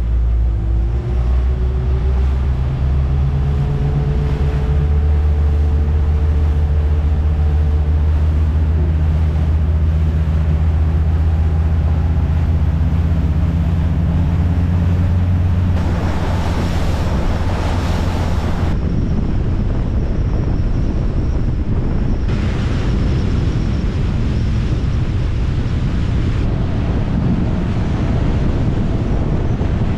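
Motorboat running at speed on the open sea: a steady low engine drone with the rush of its wake and wind buffeting the microphone. A faint whine climbs in pitch over the first several seconds, and a louder rush of spray and wind comes in a little past halfway.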